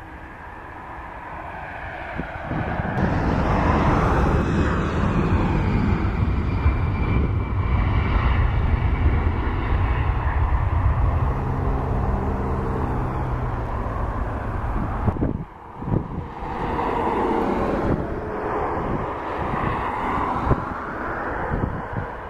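Jet engines of a Ryanair Boeing 737-800 at takeoff thrust on the takeoff roll, building to a loud, steady rumble about two seconds in, with tones falling away as the aircraft heads off. After a cut, the engines of an Aer Lingus Airbus A320 rolling along the runway, with a falling tone.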